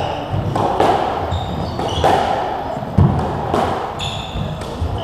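Squash rally: the ball smacks off rackets and walls roughly once a second, each hit echoing in the court. Between hits, shoes squeak briefly on the wooden floor.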